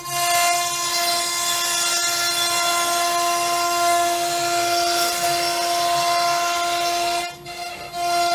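CNC router's electric spindle running at about 21,000 RPM, a steady high whine with a hiss of cutting as the bit routes through a sheet of wood. The sound dips briefly near the end.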